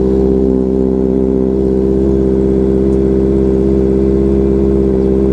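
Kawasaki Ninja ZX-4RR's inline-four idling steadily through an SC Project slip-on exhaust while the engine warms up. The loud exhaust note is held at a constant pitch.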